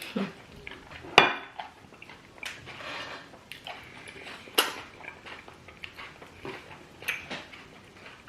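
Dishes and cutlery clinking during a meal of banku and okra soup. Three sharp clinks stand out, the loudest about a second in, among softer scraping and handling sounds.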